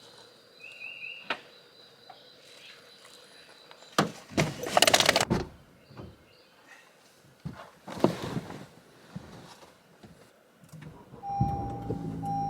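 Quiet background with a click and two loud bursts of rustling and handling noise. Near the end, a car engine starts and runs steadily while a short chime beeps over and over.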